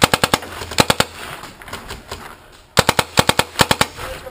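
Paintball marker firing two rapid volleys of shots, about a second each, the first at the start and the second nearly three seconds in.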